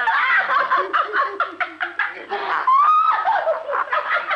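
A man and a woman laughing hard together in quick, loud bursts, with one high rising-and-falling laugh about three seconds in.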